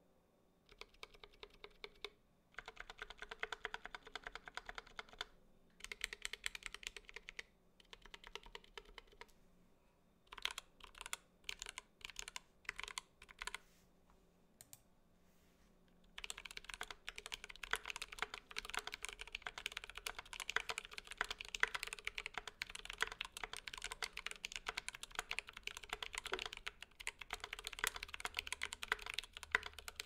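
Mechanical keyboard typing on lubed Zealios V2 67g tactile switches with PBT keycaps in an IDOBAO ID80 hot-swap 75% board. Short bursts of keystrokes and a few separate single presses come first, then continuous fast typing from about halfway through.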